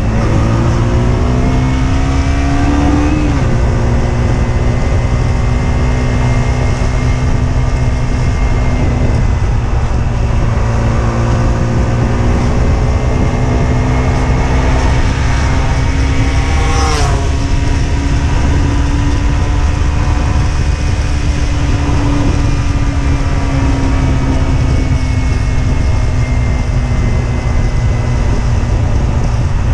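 Husqvarna Svartpilen 125's single-cylinder four-stroke engine under way, revs climbing and then dropping with an upshift about three seconds in, then pulling slowly higher and easing off later on. A brief whoosh falling in pitch about halfway through sounds like another vehicle going by. Heavy wind rumble on the helmet-mounted microphone.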